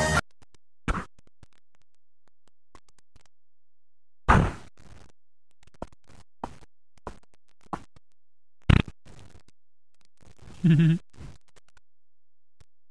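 Mostly quiet, broken by scattered thumps and knocks: two loud ones about four and nine seconds in, smaller ticks between, and a brief low pitched sound near eleven seconds.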